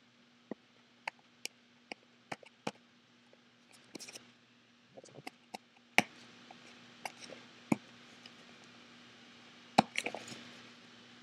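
Camera retail packaging being worked open by hand: scattered sharp clicks, taps and cracks, with two louder snaps about six seconds in and near ten seconds, the second followed by a short flurry of handling noise.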